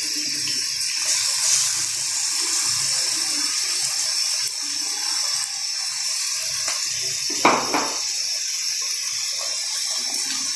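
Hot oil sizzling steadily in an aluminium kadai as onions, curry leaves and freshly ground masala fry, with one short louder burst about three-quarters of the way through.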